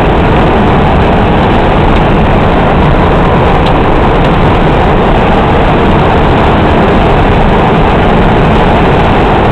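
Vehicle on the move: loud, steady engine and road noise with no change in pitch.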